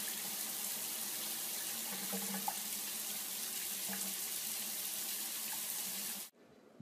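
A thin stream of running water from a tap or shower splashing onto a cat's fur in a bathtub, a steady hiss that cuts off suddenly near the end.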